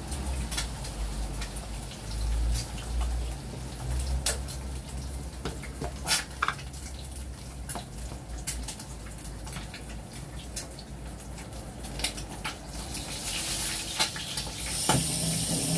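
Scattered clicks and knocks of kitchen work at the counter: a knife on a plastic cutting board and a small plastic container being handled. About a second before the end a kitchen tap starts running.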